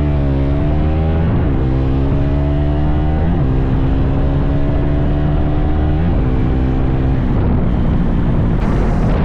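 Motorcycle engine under way, its note climbing as it speeds up and dropping sharply at each gear change, about three shifts in a few seconds.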